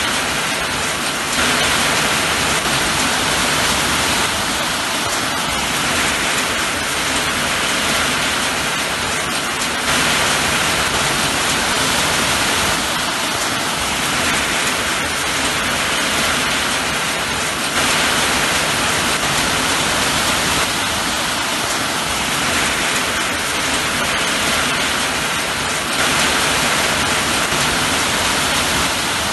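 Steady rain, a dense even hiss, with small jumps in loudness about every eight seconds.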